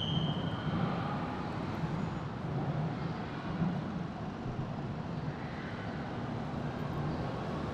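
Steady low rumble of outdoor background noise, like distant traffic, with no distinct events.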